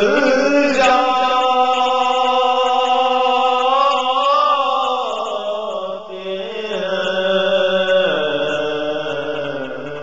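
A man's voice singing a naat, an Urdu devotional poem, in a chant-like style, holding long drawn-out notes that glide slowly between pitches.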